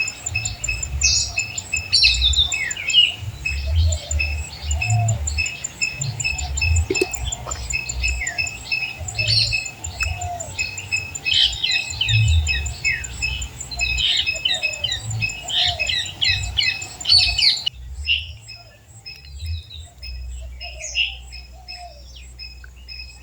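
Birds calling in a rapid run of short squawks and chirps, over a fast, even, high-pitched ticking. About three-quarters of the way through the background noise drops away suddenly and the calls continue more sparsely.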